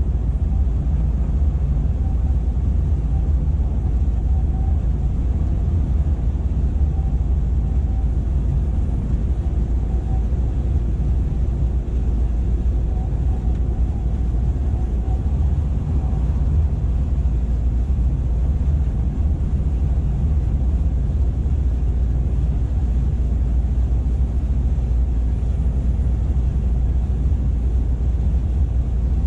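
Cab interior of a 2007 Scania R480 truck cruising at steady speed: the straight-six diesel engine and tyre-on-road noise make an unbroken low drone.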